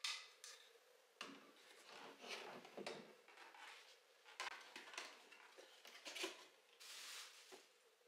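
Small objects being handled and set down: a run of light clicks, taps and rustles, with a brief hiss near the end.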